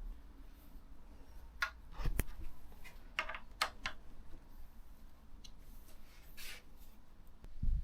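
Hand tools and small metal parts being handled while a motorcycle headlight is unbolted: a scatter of sharp clicks and taps, a brief rub and a low thump near the end.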